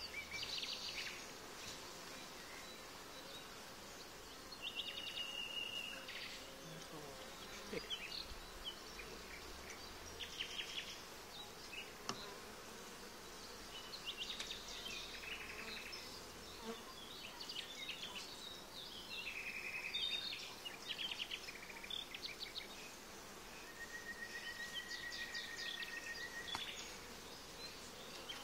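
Honey bees buzzing steadily around an open hive while a frame covered in bees is held up over it. Short high chirps sound now and then above the buzz.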